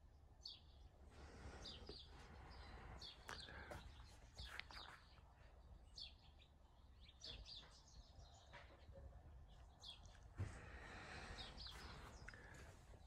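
Near silence: faint garage room tone, with soft rustling swells and a scattered run of short, high chirps.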